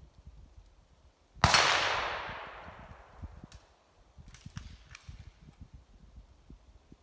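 A single gunshot fired in the open, about a second and a half in, its echo rolling off and fading over about a second and a half. A few faint sharp clicks follow a couple of seconds later.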